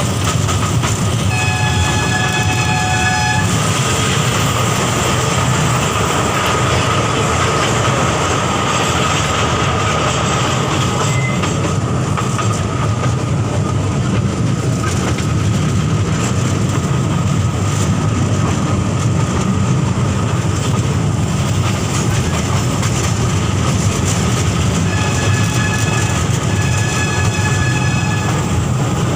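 Ride-on toy train running along its track with a steady rumble. Its horn sounds once about a second in and twice more near the end.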